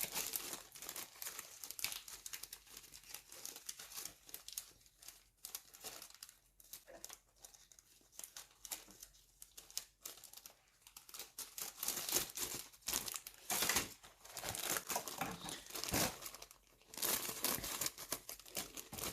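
Thin plastic bags holding plastic model kit parts crinkling and rustling as the parts are handled and bagged, in irregular crackles that get busier over the last several seconds.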